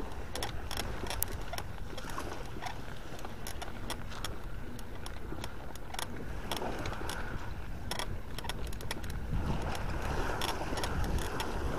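Bicycle rolling over a rough dirt path: a steady low rumble with frequent sharp clicks and rattles as the bike jolts over bumps.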